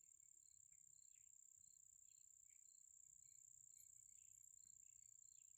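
Near silence with faint insect trilling: a steady high-pitched tone with soft, evenly repeating chirps.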